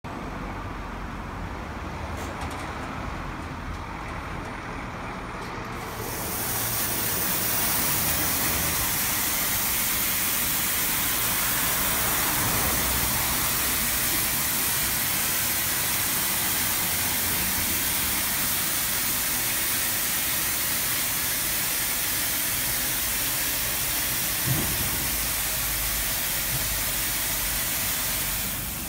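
Istobal M12 rollover car wash running: a low machine rumble, then about six seconds in a sudden loud, steady hiss of water spraying onto the car, which stops just before the end.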